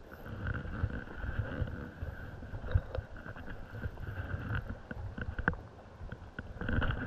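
Running stream water with irregular low rumbling on the microphone. A few small sharp clicks come about three and five and a half seconds in.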